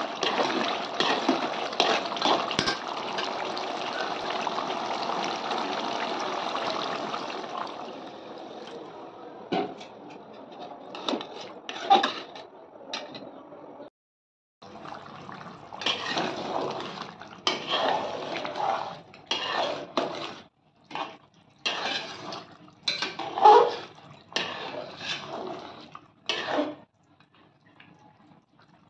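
A steady rush of water pouring into an aluminium pot of duck curry for about seven seconds, fading out. Then a metal ladle stirs the curry, knocking and scraping against the pot's sides in short, irregular bursts.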